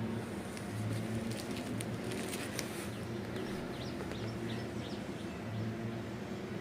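Small birds chirping in short, quick notes, over a steady low rumble like distant traffic.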